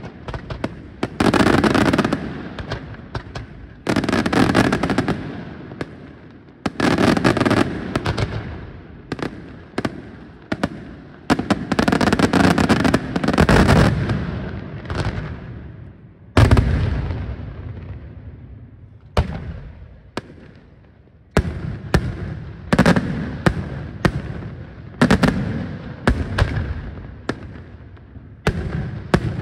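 Daytime fireworks shells bursting overhead in quick succession: a loud bang every two seconds or so, each followed by a rolling echo, with crackling in between.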